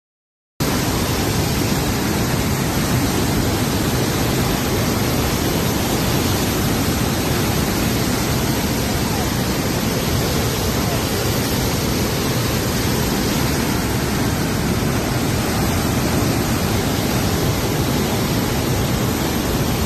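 A river in heavy flood rushing and churning past: a loud, steady wash of water noise, heaviest in the low end, that cuts in abruptly about half a second in.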